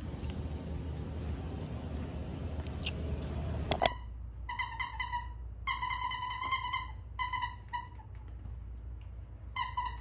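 Steady outdoor hiss with faint bird chirps, broken by two sharp clicks a little under four seconds in. After that, a plush dog toy's squeaker squeaks in short bursts, several times over, while puppies bite and tug at the toy.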